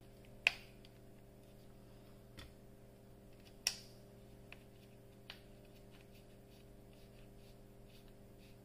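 Light clicks and taps of a carbon brush and its plastic screw cap being fitted into the brush holder of a Makita BGA452 cordless angle grinder. There is a sharp click about half a second in and another about three and a half seconds in, with a few fainter ones between and after, over a faint steady hum.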